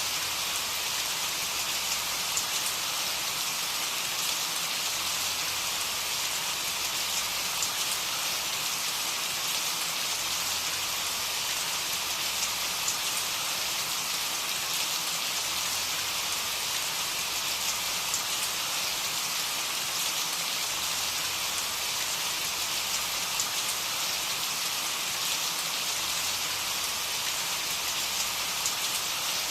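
Steady rain falling: an even, dense hiss of drops with faint scattered patters, unchanging throughout.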